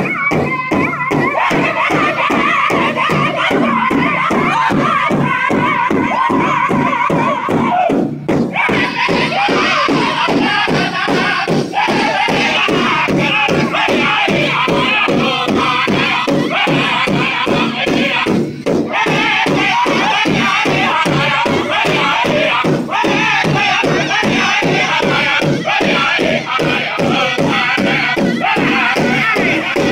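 Powwow drum group singing around a big drum, striking it together in a steady, even beat with high-pitched group singing over it. The singing swells fuller and higher about eight seconds in.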